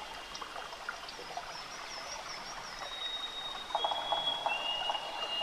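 Nature ambience: high steady whistling calls and a run of repeated chirps, joined about two-thirds of the way in by a fast pulsing frog-like trill, over a faint hiss like trickling water.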